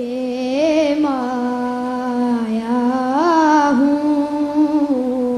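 A boy singing a naat in sana khawani style, drawing out long held notes with wavering pitch and slow melodic turns, rising to a higher phrase about three seconds in. He is pitched low, which the judges later remark on.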